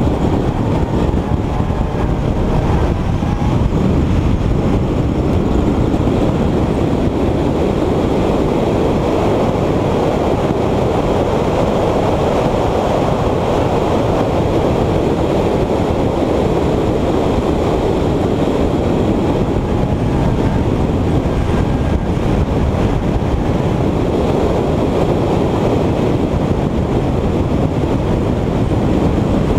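Subaru BRZ's 2.0-litre flat-four engine running at mid revs while the car laps a race track, under a steady heavy rush of wind and road noise.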